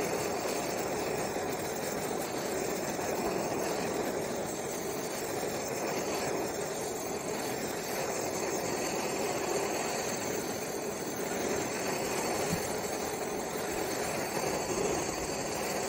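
Bernzomatic MAPP gas torch burning with a steady hiss as its flame is played over the steel head of a golf wedge, heating it to blue the finish.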